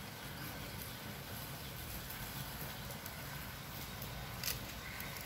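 Firewood burning faintly in a small clay stove, a low steady rumble with a single sharp crackle about four and a half seconds in.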